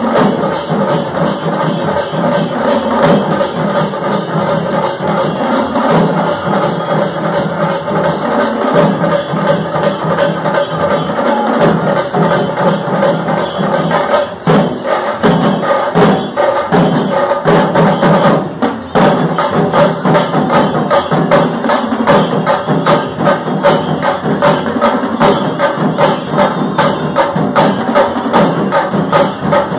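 Live festival percussion ensemble of drums with metallic clashes, playing a fast, dense, unbroken rhythm to accompany pookkavadi dancing.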